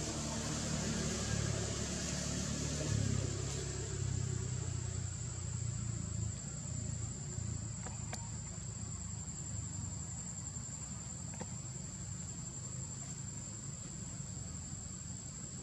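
Steady high-pitched drone of insects, with a low rumble through the first few seconds that fades away, and two faint clicks later on.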